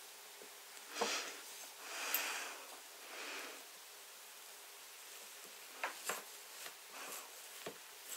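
Knife slicing through a frosted layer cake: soft scraping swishes as the blade passes through the sponge and icing, and sharp clicks as it meets the cutting board, one about a second in and several near the end.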